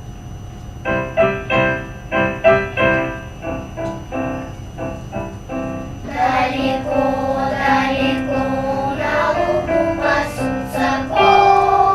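Children's choir performing with piano accompaniment. A passage of struck piano chords opens it, and the children's voices come in about six seconds in, singing over the piano.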